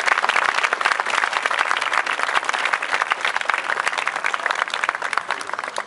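Audience and uniformed firefighters applauding, a dense patter of many hands clapping that tapers off near the end.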